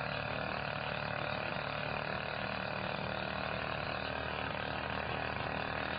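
Steady low hum with several fixed tones, unchanging throughout.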